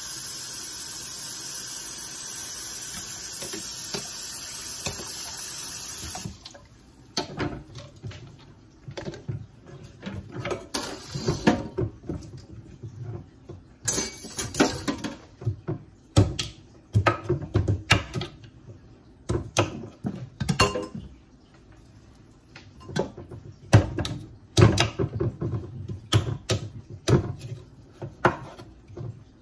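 A steady rushing hiss cuts off suddenly about six seconds in. It is followed by a kitchen knife cutting squash on a wooden cutting board: irregular clusters of sharp knocks with short pauses between them.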